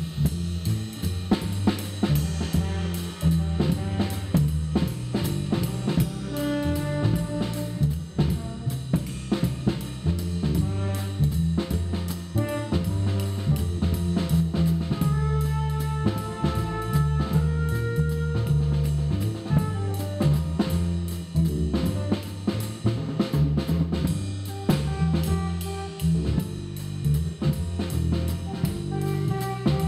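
Background music: a drum kit playing a steady beat over a bass line, with a melody on top.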